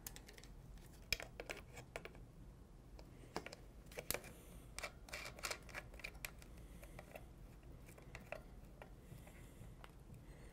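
Faint, scattered clicks and light scrapes of a metal Harris S-Series bipod being fitted by hand onto a polymer rifle stock, fewer near the end.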